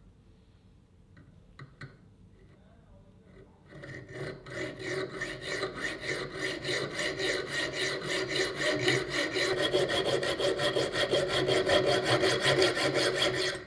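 Hand file scraping across a steel knife blade in quick, even back-and-forth strokes, starting a few seconds in, growing louder, and stopping abruptly.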